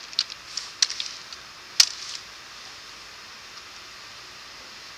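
Computer keyboard keystrokes, about half a dozen separate clicks in the first two seconds with the loudest about two seconds in, then a faint steady hiss. The keys are editing and entering a terminal command.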